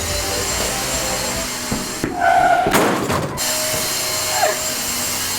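Dyson cordless vacuum running on max power: a steady rushing hiss with a thin high whine. About three seconds in there is a thump.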